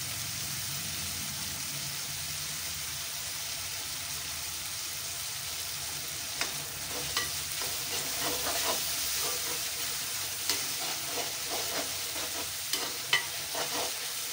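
Brinjal masala with tamarind juice sizzling in a kadai with a steady hiss. From about six seconds in, a steel spoon stirs it, with scattered scrapes and clinks against the pan.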